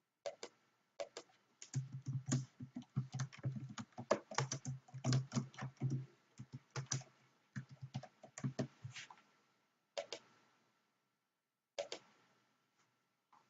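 Typing on a computer keyboard: a fast, irregular run of keystrokes for most of the stretch, then a pause and a few scattered key presses near the end.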